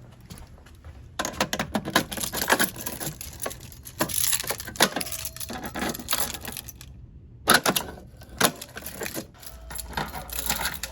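Irregular run of sharp metallic clicks and rattles from a fire alarm pull station being handled and worked by hand, with a loud cluster of clicks about two-thirds of the way through.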